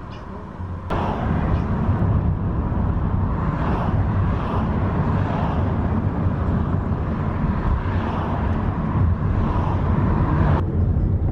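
Car driving along, a steady rumble of engine and road noise. The sound jumps abruptly about a second in and again near the end.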